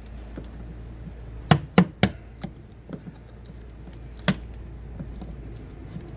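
Sharp hammer knocks on the wooden hull while the rotted area around a cut-out hole is probed: three quick strikes about a second and a half in, a few lighter taps, then one more strike a little past four seconds.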